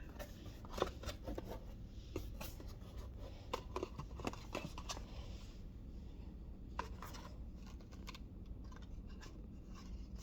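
Handling noises: scattered light clicks, taps and scraping of things being moved about, with a short rustle about four to five seconds in.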